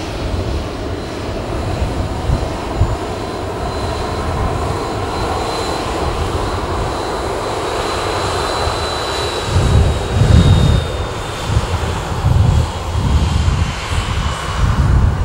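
Boeing 737-800's CFM56 jet engines running loud as the airliner rolls out along the runway after landing, with a high whine that slowly falls in pitch as the engines spool down. From a little past halfway, gusts of wind buffet the microphone with low rumbles.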